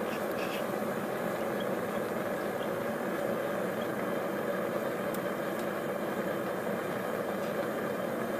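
Homemade forge burner made from 3/4-inch pipe, running with a steady rushing noise as it fires the glowing forge chamber.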